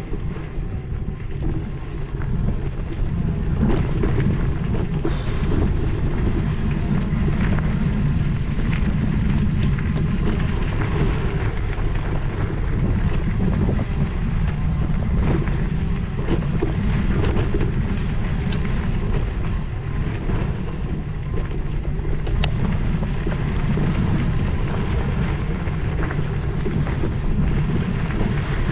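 Steady low rumble of wind buffeting the microphone while moving, with small scattered rattles and clicks over it.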